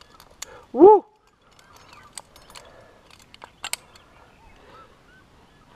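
Sharp metallic clicks of carabiners as a quickdraw is clipped to an anchor bolt and gear is handled, the clearest two close together a little past the middle. About a second in, one short, loud call that rises and falls in pitch.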